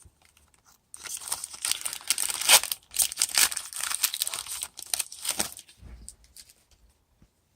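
A 2018 Diamond Kings trading-card pack wrapper being torn open and crinkled by hand, the crackling loudest about two and a half seconds in, before it stops shortly after five seconds.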